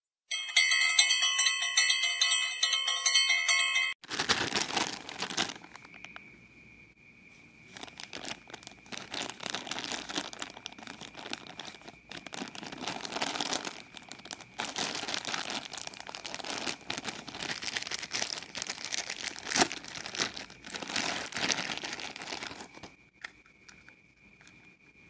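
A short jingle of ringing tones lasting about four seconds, then a McDonald's Happy Meal toy's thin plastic packet crinkling and rustling as it is handled and opened, stopping near the end.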